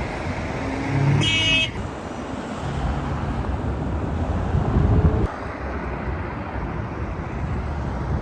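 Road traffic passing steadily, with a short car horn toot about a second in.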